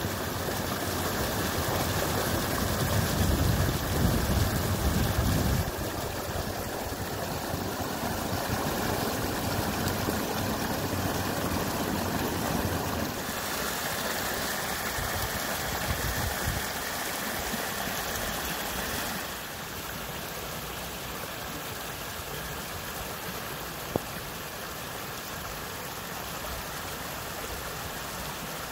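Seasonal spring-fed stream running full with storm water, pouring over a small drop in a steady rush. It is loudest for the first six seconds, then grows a little quieter in steps.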